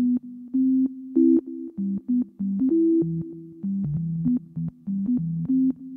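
Background music: a quick line of short, low notes that step up and down in pitch.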